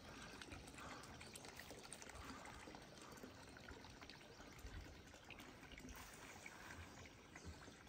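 Faint, steady trickle of pumped water pouring from a hose into a covered water holding tank.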